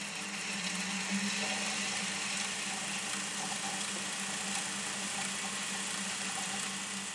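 Telefunken Magnetophon 15 reel-to-reel tape machine winding tape at speed: a steady hiss of the running tape over a low motor hum.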